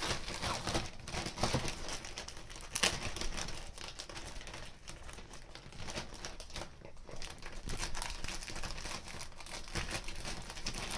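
Plastic courier mailer bag crinkling with irregular crackles as hands handle it and work its sealed end open.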